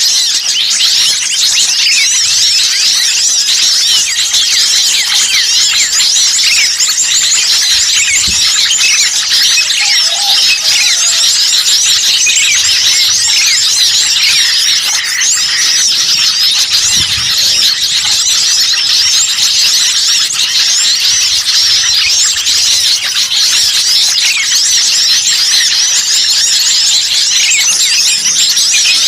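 A loud, dense chorus of many small songbirds chirping and twittering at once, with no pause: a noisy mixed-species bird-lure recording of agitated small birds.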